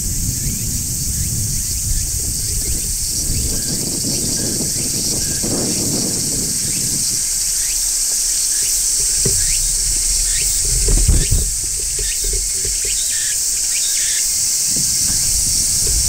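Large brown cicadas shrilling: a steady, unbroken high-pitched drone, over an uneven low rumble that swells about eleven seconds in.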